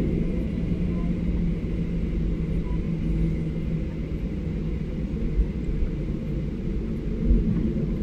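Steady low rumble of a Boeing 737's cabin on the ground, with a steady hum through the first few seconds that then fades.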